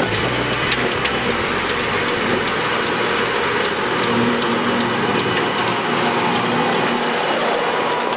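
Tractor and forage harvester running steadily while chopping silage: a dense, even machine noise with many small sharp ticks scattered through it.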